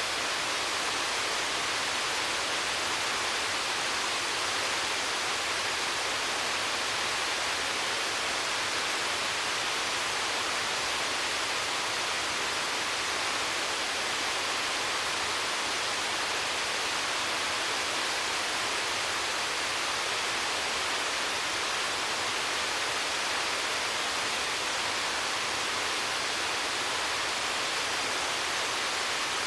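Waterfall rushing: a steady, unbroken hiss of falling water with no changes.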